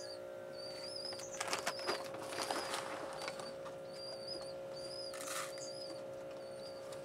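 Rabbit moving about in a wire cage, with scuffling and rustling between about one and three seconds in and again briefly near five seconds. Under it runs a steady electrical hum, and a high warbled chirp repeats about once a second.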